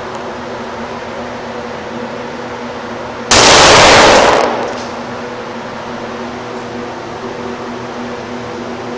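Gunfire from an ISSC M22 .22 rimfire pistol: one loud blast a little over three seconds in, so loud it overloads the recording for about a second before fading. A steady background hum runs before and after it.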